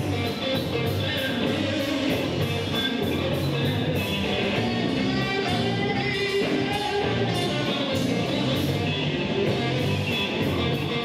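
Live band playing a blues-rock song: two electric guitars over a drum kit, with cymbal strokes keeping a steady beat.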